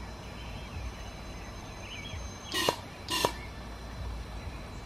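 Two short, sharp bursts about half a second apart from a homemade propane rocket test chamber's spark-ignition rig. Each is a brief hiss ending in a snap. The chamber fails to light.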